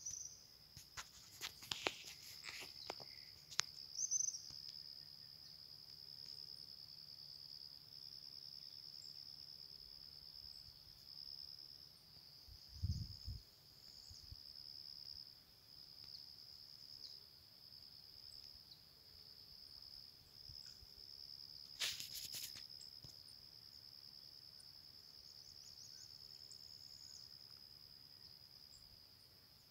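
Insects trilling steadily in one high-pitched band, faint, with a few sharp clicks in the first few seconds and again about two-thirds through, and a short low thump near the middle.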